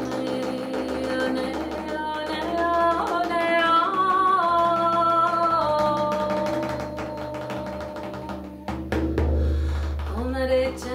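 Ceremonial chant: a voice sings long held notes that step up in pitch and then slide slowly down, over drum beats. A deep drum comes in heavier near the end.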